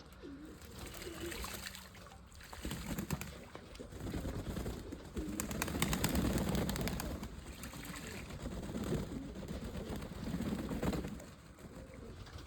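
Domestic pigeons cooing, low repeated calls, with scattered crackles and rustles that are busiest in the middle.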